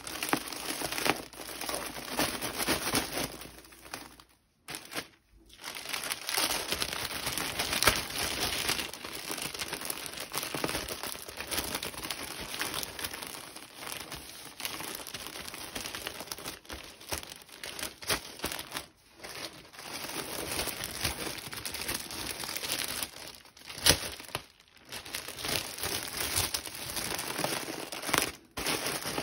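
Plastic mailing bag crinkling and rustling as a bulky, airy plush knitted jumpsuit is pushed into it, with a couple of short pauses.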